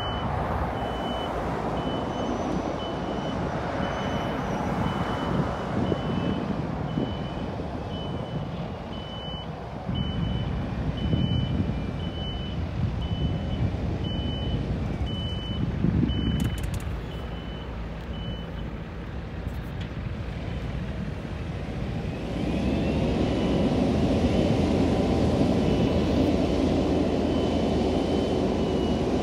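Firefighting helicopter starting up: a steady engine rumble with a short beep repeating a little more than once a second, which stops about two-thirds of the way through. About 22 seconds in, a turbine whine rises and the sound grows louder as the engine spools up and the rotors turn.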